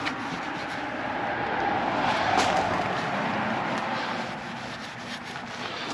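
A passing vehicle, its noise swelling to a peak about two seconds in and then fading away.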